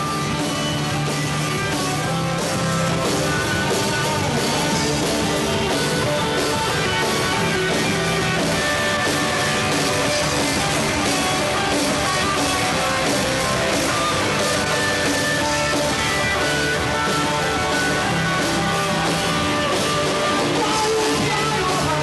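Rock band playing live: electric guitar and drum kit with a steady beat.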